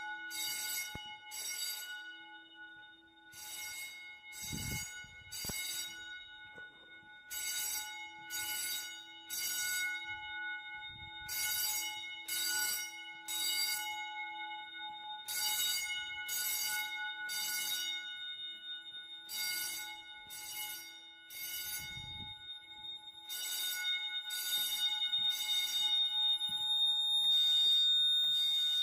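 Fire alarm bell ringing in the temporal-three evacuation pattern: three short rings, then a pause, repeating about every four seconds. A steady high tone runs underneath and grows louder near the end.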